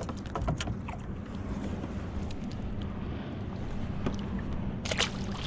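Wind buffeting the microphone on a kayak on open water, a steady low rumble, with scattered sharp clicks and knocks of handling; the loudest knocks come near the end.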